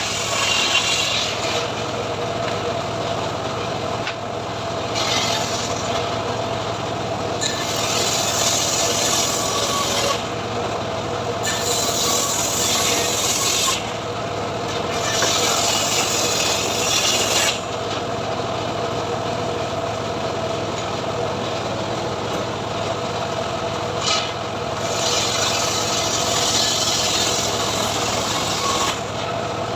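Homemade srekel sawmill ripping mahogany. The machine runs at a steady pitch, and the hiss of the blade cutting the wood comes and goes every few seconds.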